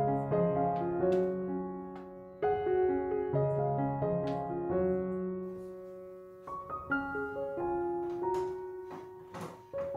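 Background solo piano music: a gentle melody of single notes and chords, each ringing and slowly fading.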